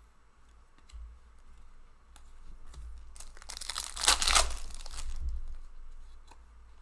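Plastic wrapper of a hockey card pack crinkling and tearing, building to a loud crackle about four seconds in and then fading.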